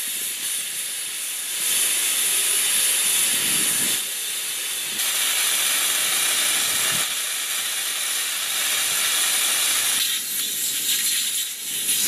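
Compressed air hissing steadily out through the valve stem of an F-35 landing-gear tire as it is deflated before removal.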